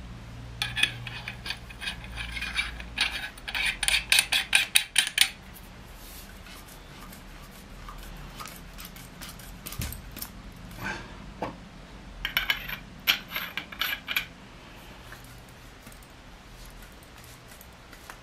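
Metal tube sections of a screw-together survival stick clinking and clicking against each other as they are handled and joined: a quick run of sharp metallic clicks for the first few seconds, and a second, shorter run about eleven seconds in.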